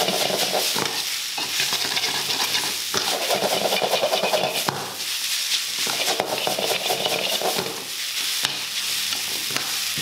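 Egg noodles and vegetables sizzling in a wok on high heat with sauce just added, tossed and stirred in swells every couple of seconds. A few sharp knocks come from the utensil striking the wok.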